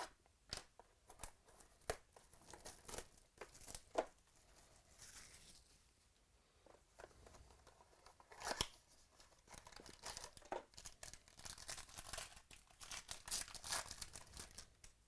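Sealed box of football trading cards being torn open by hand: wrapper tearing and crinkling, with scattered small clicks and rustles. The crinkling is busiest near the end.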